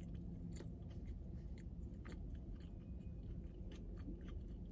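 Close mouth sounds of someone chewing a mouthful of breakfast biscuit sandwich: soft, irregular small clicks and smacks, over a steady low hum.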